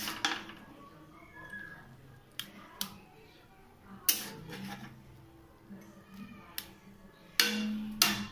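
Metal spatula clinking and scraping against a steel kadhai and steel plate as noodles are served: several sharp clinks, one loud ringing clink about four seconds in, and a longer, louder scrape near the end.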